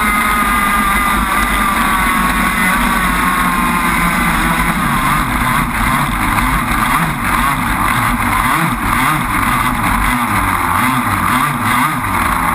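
Onboard sound of a gas-powered RC crackerbox boat's two-stroke engine running at speed, with water spray and wind rushing past. The engine note holds steady at first, then wavers up and down from about five seconds in.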